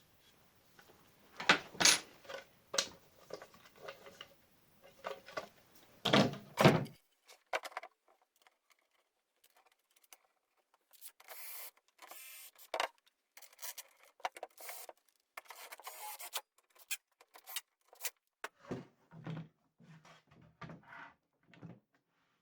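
Hand-handling of workshop parts: irregular knocks and clicks of objects set down and moved, then short bursts of scraping or sliding a little past the middle, and a few soft thumps near the end.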